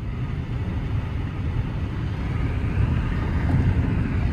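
Road vehicle noise: a steady low rumble with a hiss that swells near the end.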